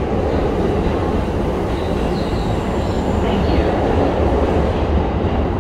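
Red Keikyu electric train running along the platform: a steady, loud rumble of wheels and running gear, with the hiss above it thinning near the end as the cars move on.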